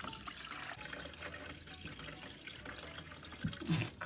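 Kitchen tap running, its stream pouring into a stainless steel pot to fill it with water over pieces of raw spleen.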